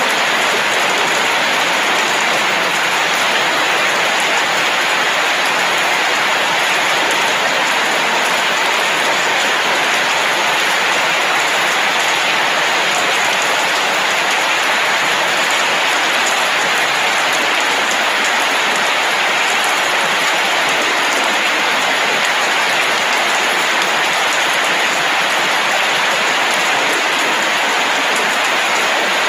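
Steady rain falling at night, an even, unbroken hiss that keeps the same level throughout.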